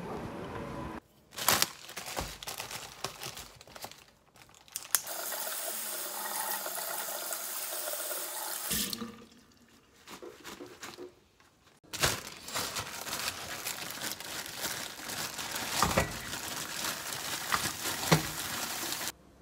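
Kitchen tap running water into a stainless-steel sink while a pot is rinsed, with knocks and clatter of cookware.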